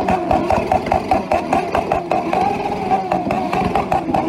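Motorcycle engines with tall open stovepipe exhausts held against the rev limiter, the "rupture" that bikers stage. A steady high-revving note is chopped by rapid cutouts and pops from the exhausts, which spit flames.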